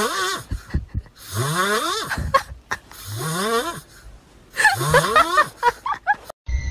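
Sleeping cat snoring: four long snores, each rising in pitch, about one and a half seconds apart, with a few shorter snorting breaths near the end.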